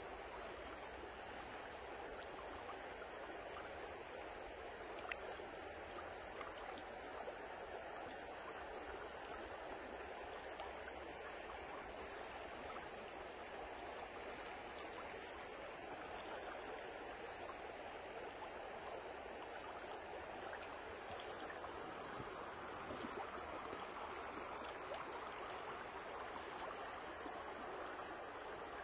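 Shallow river water running steadily over stones, growing a little louder in the last third.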